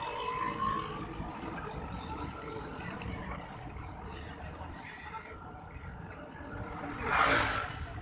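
Street traffic noise heard from a bicycle riding along a city road, with a louder rush of noise about seven seconds in.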